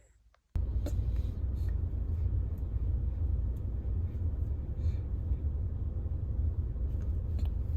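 Steady low road and engine rumble heard inside a moving car's cabin, starting abruptly about half a second in, with a few faint ticks over it.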